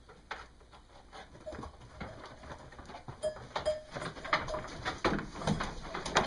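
Sheep bleating a few short times in a barn, with knocks and rustling that grow louder in the second half.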